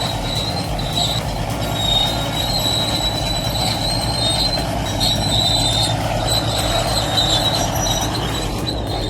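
Steel tracks of a heavy crawler machine squealing as it moves, a steady high-pitched squeal over the low rumble of its diesel engine.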